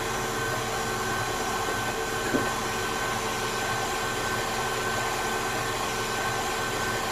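KitchenAid Classic Plus tilt-head stand mixer running steadily at one speed, its motor giving a constant whine and hum as the flat beater whips thick pound cake batter in a stainless steel bowl.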